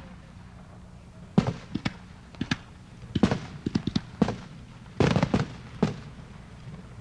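Fireworks going off: a dozen or so sharp bangs and pops in irregular clusters, a few close together, with short gaps between the clusters.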